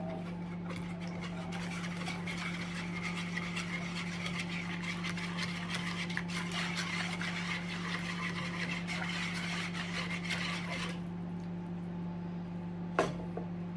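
A whisk stirring half-cooked béchamel in a plastic microwave bowl: a busy run of scraping ticks as it beats against the bowl, stopping about eleven seconds in, followed by a single knock. A steady low hum runs underneath.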